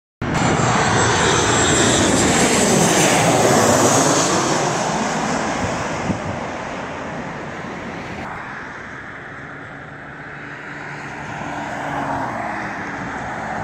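Jet airliner passing low overhead, its engines loud, with a falling sweep in pitch as it goes by for the first few seconds before fading. About halfway through the sound changes abruptly to a quieter steady engine noise, which rises again near the end as a car passes.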